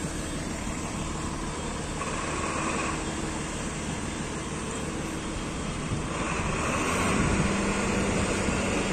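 Steady background noise of an industrial truck yard, a low vehicle-engine hum under a hiss. It grows a little louder about six seconds in.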